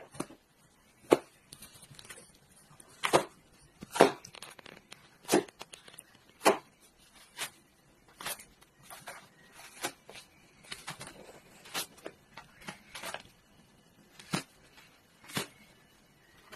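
Cat tearing up toilet paper with its teeth: irregular sharp rips of paper, roughly one a second and of varying loudness, with faint rustling of the shreds between.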